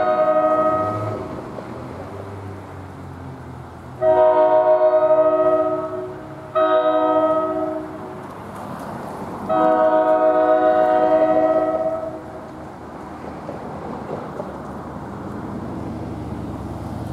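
NJ Transit commuter train's multi-chime air horn sounding the grade-crossing signal as it approaches: long, long, short, long. Each blast is a chord of several steady notes.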